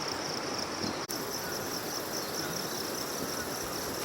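Field insects, cricket-like, chirping in a steady, rapidly pulsing high trill over outdoor background noise.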